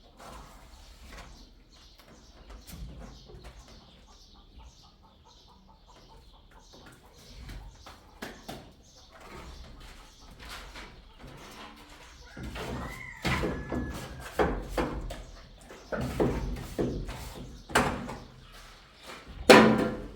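Irregular knocks and bangs, louder and more frequent in the second half, with the loudest bang near the end.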